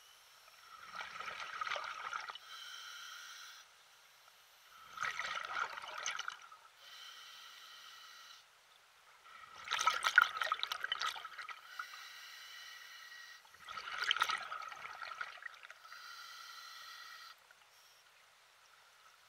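Water sloshing and splashing in four bursts about four seconds apart, with quieter stretches between.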